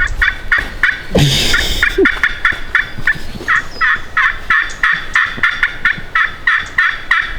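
A turkey call imitating a hen: a long run of short, evenly spaced yelps, about three to four a second, with a brief pause about a second in.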